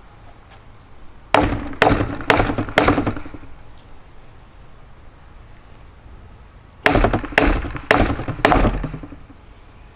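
Hammer striking a metal chisel set into a wooden log: a run of four blows about half a second apart near the start, then four more about seven seconds in, each with a short metallic ring.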